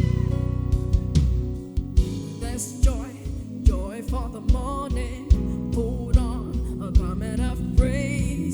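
Live gospel worship band playing with a steady drum beat under sustained chords, and a singer's voice wavering over it.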